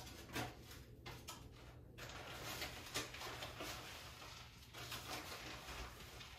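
Milk heating in a stainless steel pot on an electric cooktop, a faint crackling fizz with many small ticks setting in about two seconds in, after a few soft clicks.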